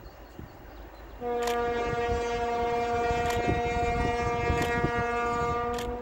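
ST44 "Gagarin" diesel locomotive's horn sounding one long, steady blast that starts about a second in and is held for nearly five seconds.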